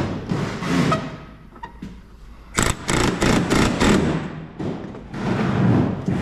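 Pneumatic rivet gun hammering a solid aluminium rivet into the wing's STOL leading-edge cuff, in a quick string of about seven short bursts over roughly a second and a half, starting a little past two seconds in.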